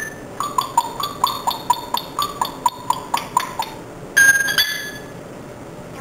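Parrot calling a rapid run of short, slightly falling chirps, about four a second, then two louder, higher whistled notes a little after four seconds in.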